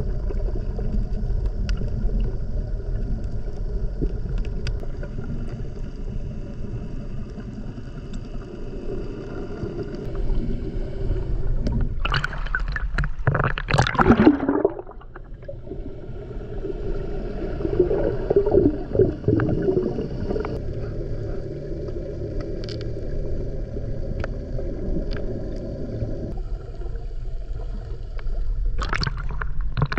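Underwater sound from a snorkeller's camera: muffled water noise with a steady low hum. A loud gurgling swell of water comes about twelve to fourteen seconds in, with more gurgling a few seconds later.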